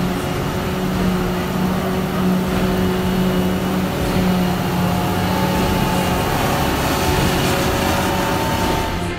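Krone BiG X 630 self-propelled forage harvester running under load while chopping grass, a steady drone of engine and chopper with a dense rushing noise underneath.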